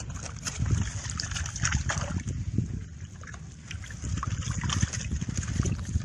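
Water splashing and dripping as a mesh keep net full of milkfish is worked in and out of the water, over a steady low rumble.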